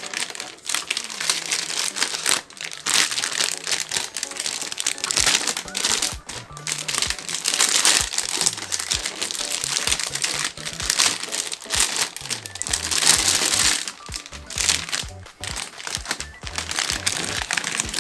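Plastic packaging crinkling and rustling in a run of quick crackles as it is handled, over background music.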